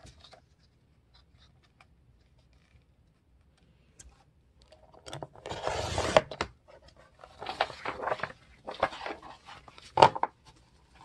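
Sliding-blade paper trimmer cutting through a folded book signature at the spine: one rasping stroke of the blade about five seconds in. Shorter rustles of the pages follow, with a sharp knock near the end.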